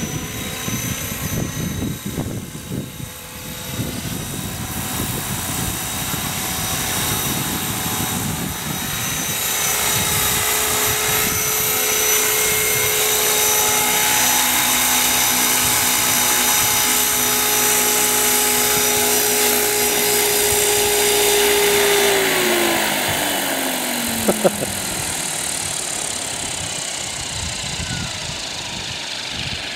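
Radio-controlled scale Bell 206L LongRanger model helicopter running, its engine and main rotor whining steadily as it hovers low and settles onto the ground. About 22 s in the pitch slides down as the engine and rotor slow toward idle, with two sharp clicks shortly after.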